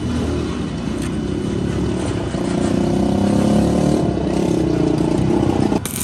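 Motorcycle engine running, growing louder through the middle, then cutting off suddenly near the end.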